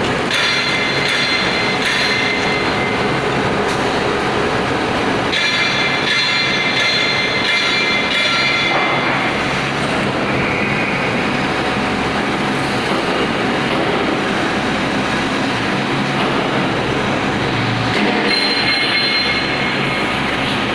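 VMS30 hydraulic vertical baler running, a steady mechanical noise. A high squealing whine comes through near the start, again from about five to nine seconds in, and in the last few seconds.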